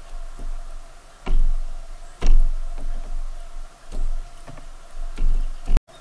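Irregular knocks and thumps, about five in six seconds, of an animal moving about on the feeder right up against the camera's microphone.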